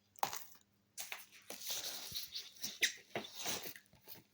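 Rustling and crinkling with small clicks as DVD cases and their packaging are handled and pulled out.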